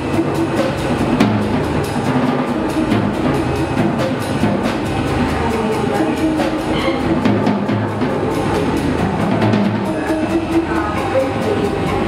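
Live rock band improvising: a drum kit keeps up steady hits under guitars and electronics in a dense, continuous jam.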